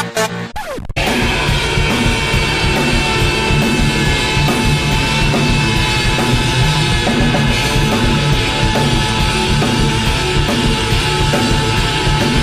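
Heavy metal music with fast, dense drumming, starting just under a second in after a short electronic dance clip cuts off.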